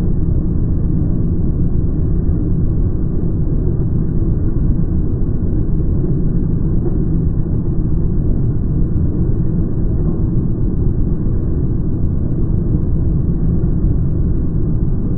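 A rotary drilling rig turning its drill rod into the ground, heard slowed down as a deep, steady rumble with no breaks.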